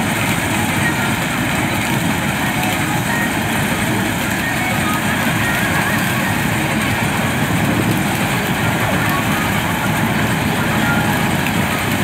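Balkar combine harvester with a maize cutter header running steadily while harvesting standing maize: a loud, even machine drone of engine and threshing gear with no change in pace.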